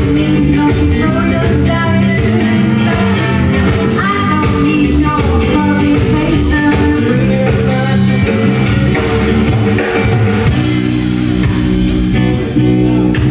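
Live rock band playing loudly: electric guitar, bass and drum kit, with a singing voice over them. The music dips briefly near the end and comes straight back.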